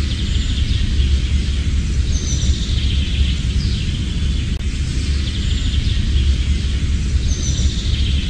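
Outdoor ambience: birds chirping in short calls, a few of them falling in pitch, over a steady low rumble and hiss.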